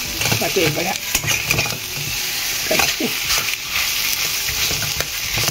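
A flat metal spatula scrapes and stirs thick mashed taro in a small steel pot, with irregular scraping strokes over a steady sizzle from the hot pan, which holds tempered cumin and mustard seeds.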